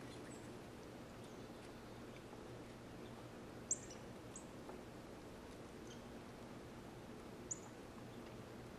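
Northern cardinal chip calls: a few short, sharp, high chips that drop slightly in pitch, the loudest about three and a half seconds in, another near the end, with fainter ones between, over a low steady hum.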